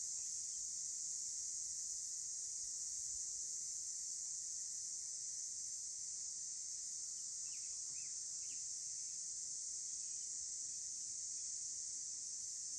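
Steady, high-pitched chorus of insects in the wild, unbroken throughout, with a few faint short chirps about eight seconds in.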